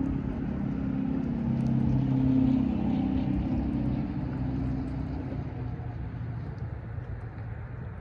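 A passing engine: a low, steady hum that swells to its loudest about two and a half seconds in, then fades away.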